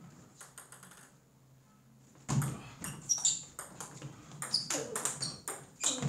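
Table tennis ball being struck back and forth by two players' paddles and bouncing on the table: a rally that starts about two seconds in as a quick, irregular run of sharp clicks, several a second.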